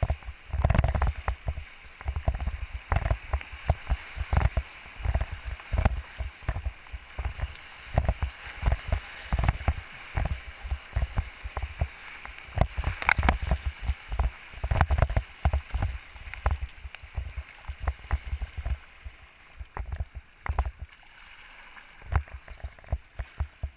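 River rapids rushing and splashing against the bow of a racing kayak, heard from a camera on the bow, with many irregular low thumps of water and wind against the microphone. It quietens near the end as the kayak reaches calmer water.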